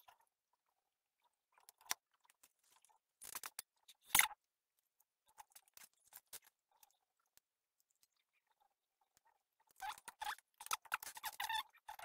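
A small circuit board being worked free from a larger board and handled on a workbench: scattered clicks and short crunchy crackles, one sharp click about four seconds in, and a cluster of crackling and scraping near the end as the board comes loose.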